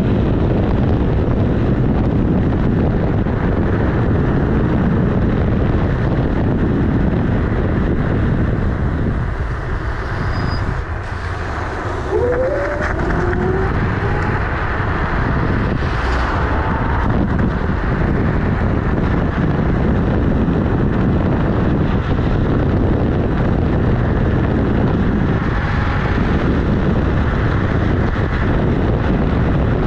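Electric scooter riding at speed, heard from beside its wheel: wind buffeting the microphone over steady tyre and road noise. About ten seconds in, the noise drops for a couple of seconds and a brief rising whine comes in. A single knock follows a few seconds later.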